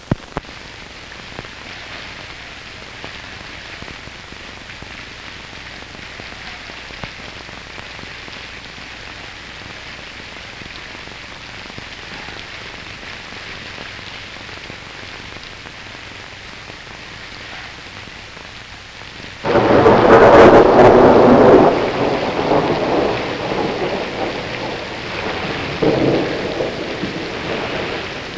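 Steady rain hiss, then about twenty seconds in a sudden loud thunderclap that rumbles on for several seconds and swells again near the end.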